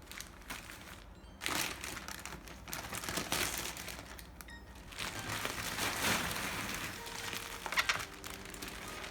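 Packaging being handled and unwrapped, with crinkling and rustling in uneven bursts and a few sharp clicks. Soft background music comes in near the end.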